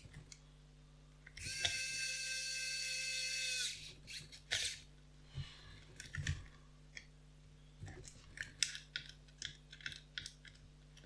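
Wowstick 1F+ electric precision screwdriver motor whirring for about two seconds as it drives a small screw back in, its whine dipping in pitch as it stops. This is followed by a run of small clicks and taps.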